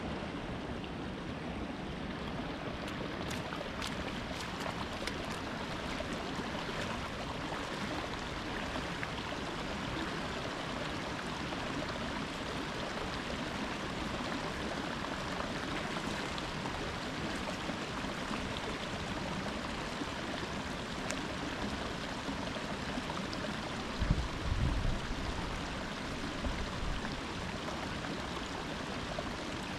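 Steady rush of running water, even and unbroken, with a few low thuds about three quarters of the way through.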